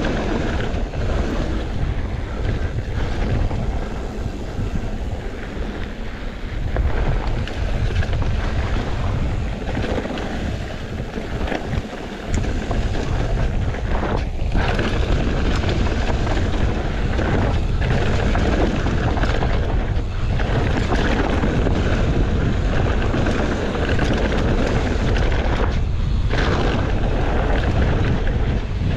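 Wind rushing over the camera microphone of a mountain bike riding dirt singletrack, with the tyres rumbling over the trail and short knocks as the bike goes over bumps.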